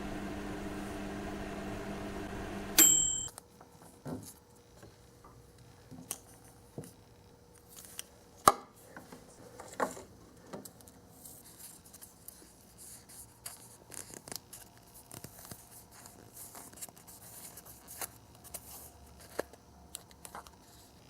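Microwave oven running with a steady hum, then a short beep about three seconds in as it stops. After that come faint, scattered clicks and taps of small plastic pieces being handled.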